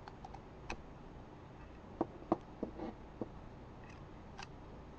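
Faint, scattered small clicks as the rubber tip is cut off the end of a metal bobby pin, about seven or eight sharp ticks, the loudest about two seconds in.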